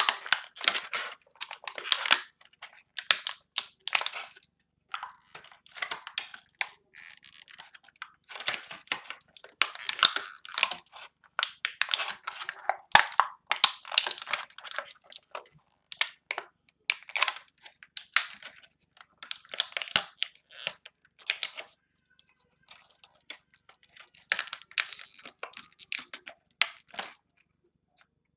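Plastic crinkling, crackling and clicking as a Beyblade is taken apart by hand, in quick irregular bursts that stop near the end.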